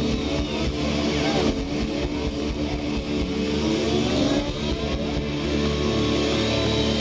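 Live rock band with an electric guitar sliding up and down in pitch, imitating a revving motor scooter, over sustained band chords.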